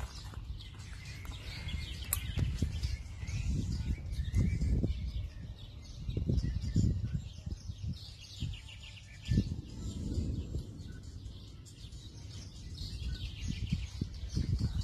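Small birds chirping and twittering in the background, over irregular low rumbling gusts on the microphone.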